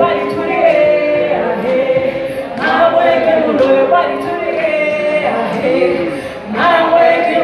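Live singing led by a woman's voice, with several voices singing together in sustained, gliding phrases.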